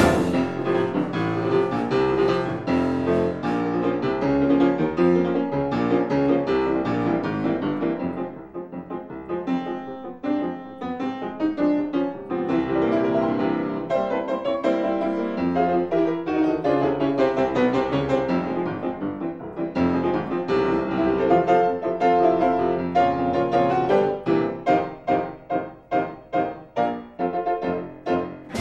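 Piano music playing a lively tune, with quick repeated short chords near the end.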